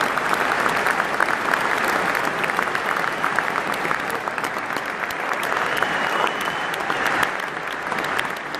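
Large stadium crowd applauding steadily, a dense crackle of many hands clapping, with a short thin whistle a little past the middle.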